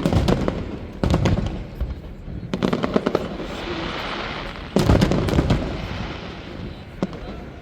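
Fireworks display: a run of bangs, each with a rattle of smaller pops, and a long crackling spray in the middle. The loudest bangs come about five seconds in, and a single sharp crack follows near the end.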